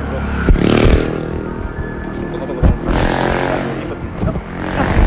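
Street traffic: motor vehicles passing close by, their engines swelling and fading several times over a steady low rumble.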